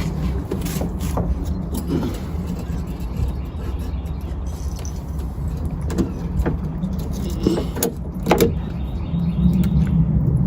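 A car engine idling steadily, with a few sharp clicks and knocks over it, the loudest a little past eight seconds in.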